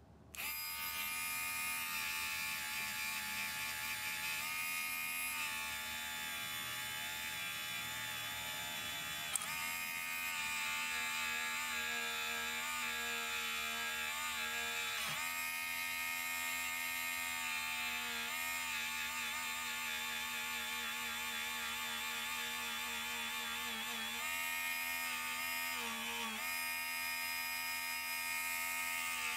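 Harbor Freight rotary tool switched on about half a second in and running with a small polishing wheel, polishing a gold grill: a steady high whine whose pitch shifts slightly now and then. A single sharp click a little over nine seconds in.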